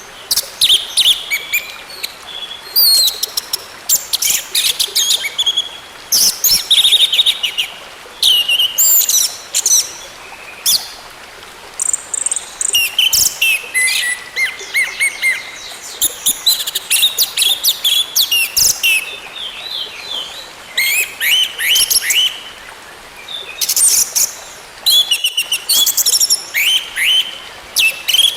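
Orange-headed thrush singing: a fast, varied stream of high chirps, trills and whistled notes in short phrases, one after another with brief pauses.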